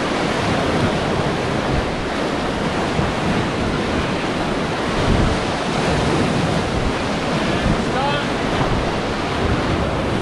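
Steady rushing of whitewater river rapids heard from a raft, a loud, even roar of water with some wind on the microphone.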